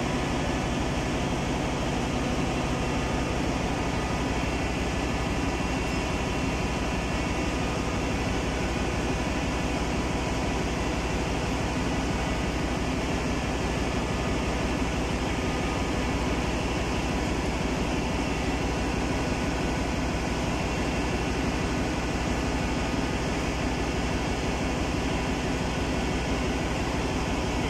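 Steady drone of a ship's engine-room machinery: a low hum with a fast, even pulse under a hiss, unchanging throughout.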